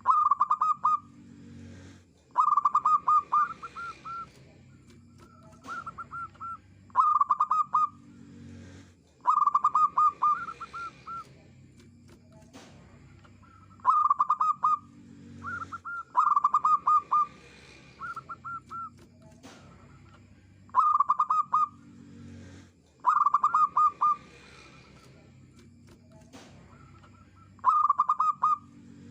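Zebra dove (perkutut) singing its cooing song: short phrases of rapid, stuttering coo notes repeated every two to three seconds.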